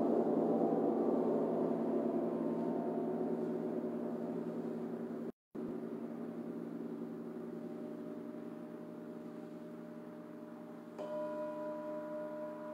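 Hanging gongs ringing after being struck: a thick wash of overlapping tones that slowly fades, with a split-second dropout about five seconds in. About eleven seconds in, a new strike brings in a clearer ringing with a few steady pitches.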